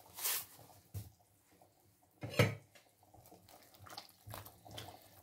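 Salt poured from a box into a stainless steel pot of water with cubed eggplant, then the eggplant stirred with a spoon, water sloshing and the spoon knocking against the pot. The loudest knock comes about two and a half seconds in.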